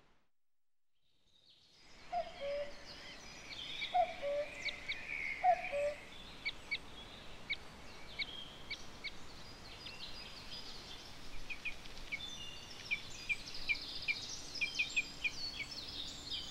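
About two seconds of near silence, then wild birds singing. A low two-note call comes three times at first, over many short, high chirps and trills that carry on throughout.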